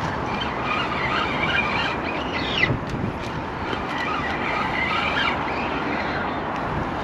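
Two taut fishing lines, one of them braid, crossed and rubbing against each other under strain from the bent rods, giving short wavering squeaks over a steady rushing noise. It is the sign that his line has crossed another angler's line, with one quick falling squeak about two and a half seconds in.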